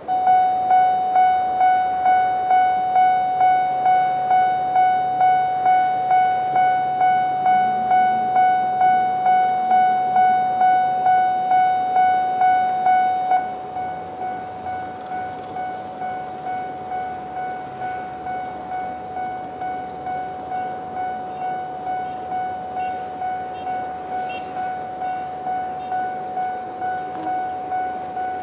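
Japanese level crossing's electronic alarm starting up and ringing a single-pitched ding at a steady, quick rhythm. Its second sounder's lower tone drops out, which the uploader notes as a fault. About halfway through, the ringing steps down to a quieter level and carries on at the same pace.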